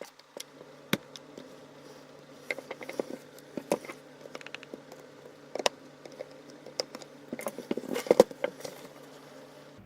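Irregular small clicks and taps of plastic and metal parts being handled as the power switch is pulled out of a plunge router's housing, busiest near the end, over a faint steady low hum.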